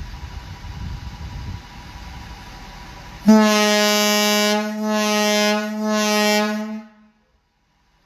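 A firehouse air horn over 60 years old sounds one long, steady blast with a single rich tone. It starts suddenly about three seconds in, wavers slightly twice and stops about seven seconds in. Before it there is only a low rumbling noise.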